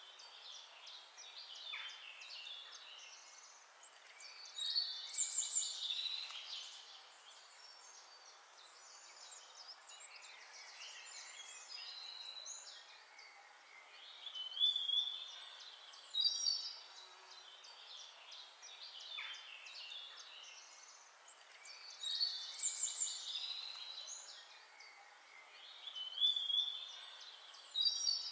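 Birds chirping and singing in short phrases of quick, high chirps, loudest in clusters every few seconds, over a faint steady hiss.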